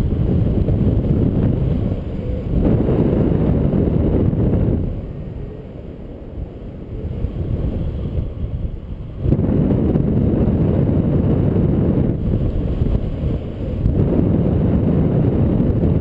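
Airflow buffeting a camera microphone in paraglider flight: a low rushing wind noise that gusts, eases off for a few seconds in the middle, then picks up again about nine seconds in.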